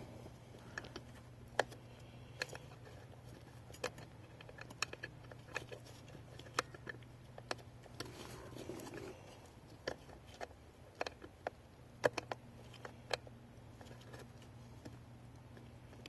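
Scattered small clicks and taps of a plastic brake light switch and its wiring plugs being handled and fitted by gloved hands, over a faint steady hum.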